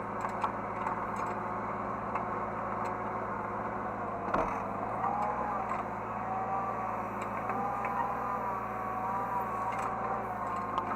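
Hydraulic excavator heard from the operator's cab: the diesel engine running steadily, with a whine from the hydraulics that wavers up and down from about five seconds in as the machine is worked. Light clicks and one sharper knock about four seconds in.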